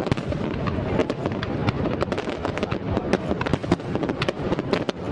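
Fireworks display bursting in rapid succession: a dense crackle of many sharp bangs and pops over a continuous low rumble.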